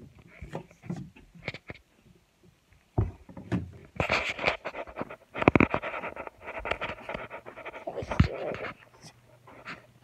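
A child breathing hard and panting close to a phone's microphone, with knocks and rubbing from the phone being handled; the breathing is heaviest from about four seconds in.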